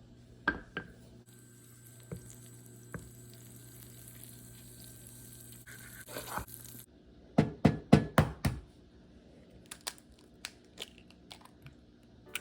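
Kitchen cooking and handling sounds: a few sharp clicks, a steady hiss over a low hum that cuts off suddenly about seven seconds in, then a quick run of heavy knocks and some lighter clicks.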